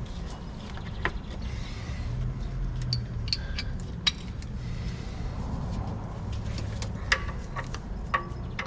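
Scattered clinks and taps of metal hand tools being fitted and tried against a tight fitting under a tractor, more frequent near the end, over a steady low hum.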